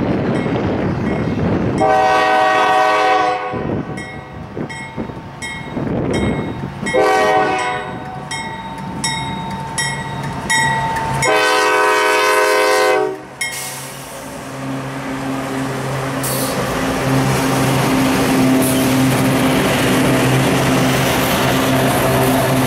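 A diesel freight locomotive's multi-tone air horn sounds three blasts for a grade crossing, the first and last about two seconds long and the middle one about a second, while a crossing bell dings about twice a second. After the last blast the locomotive engines hum steadily as the train rolls by, with the rumble and clack of the rail cars' wheels.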